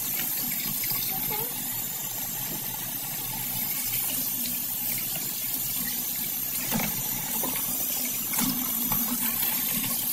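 Kitchen faucet running steadily into a stainless steel sink, the stream splashing over a raw steak as hands rub and turn it under the water, with a couple of louder splashes from the handling.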